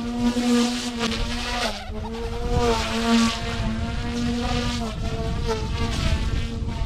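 OMPHOBBY M2 micro electric RC helicopter flying: a steady high motor and rotor whine whose pitch dips briefly about two seconds in and shifts again around five seconds in, with wind rumbling on the microphone.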